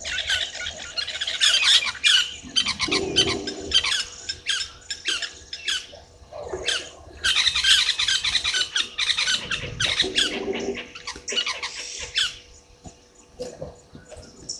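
Birds squawking and chattering in quick runs of sharp, high calls, with a lower pitched call twice, about three and ten seconds in. The calls thin out near the end.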